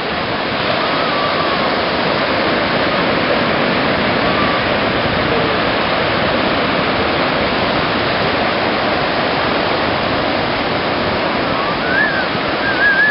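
Steady rush of ocean surf breaking and whitewater washing in over the shallows. Near the end a child's high-pitched voice calls out over it.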